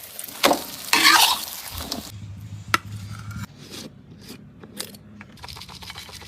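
Kitchen cooking sounds: a utensil stirring and scraping in a cooking pot, with a few sharp clinks. A steady hiss sets in near the end.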